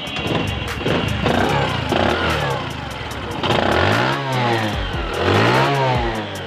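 Bajaj Discover 110's single-cylinder four-stroke engine running, then revved twice with the throttle, its pitch rising and falling each time. The seller calls the engine sound fully fresh.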